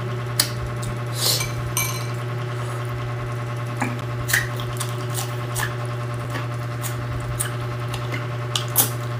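Close-miked eating: bites and chewing of a raw green onion stalk, with scattered short crunches and mouth clicks over a steady low hum.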